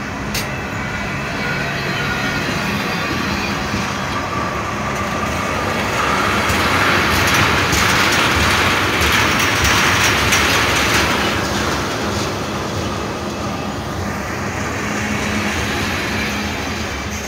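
Freight cars of a departing manifest train rolling past close by, their steel wheels running over the rails. The sound swells louder with a rushing hiss in the middle and then eases off again.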